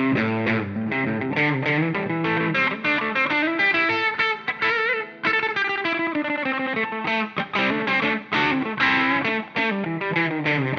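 Electric guitar, a Donner Hush X on its bridge pickup, played through a Donner Arena 2000 multi-effects processor: runs of quick picked notes, with a bent, held note about halfway through, then more fast phrases.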